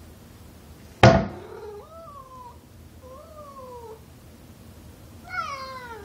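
Domestic tabby cat meowing three times at a closed door, each meow falling in pitch, the last one the loudest. About a second in there is a single sharp knock, the loudest sound, from the wooden door the cat has been reaching up against.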